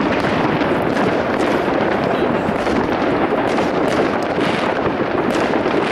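Continuous crackling and rumbling of many distant fireworks and firecrackers going off at once, a steady din in which no single bang stands out.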